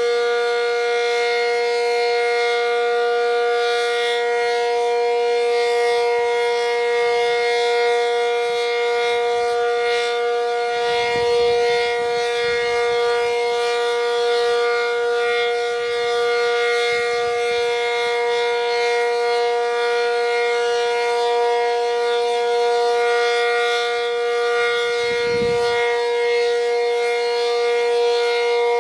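ASC Cyclone C-125 outdoor warning siren sounding a full alert: one loud, steady tone held at its top pitch without rising or falling. The siren is reverse wired.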